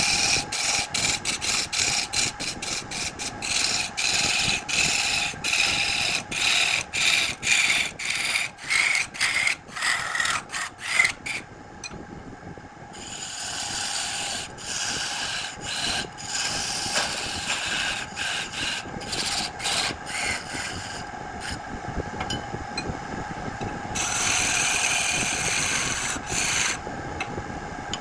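Jackfruit wood spinning on a wood lathe while a tool works it: a quick, irregular run of scraping strokes for the first ten seconds or so, then steadier rubbing against the wood, over the lathe's steady hum.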